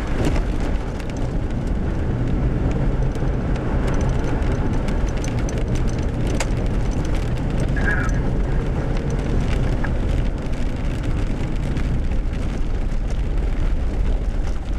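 Steady engine and road noise inside a vehicle on a gravel road.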